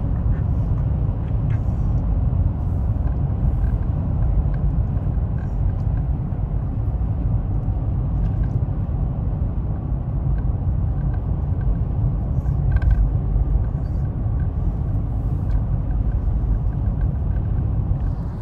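Steady low road and engine rumble heard from inside the cabin of a vehicle driving at highway speed, with a few faint clicks and a brief rattle about thirteen seconds in.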